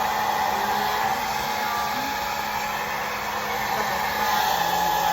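Conair mid-size blow dryer running steadily on a wig, a constant rush of air with a steady hum.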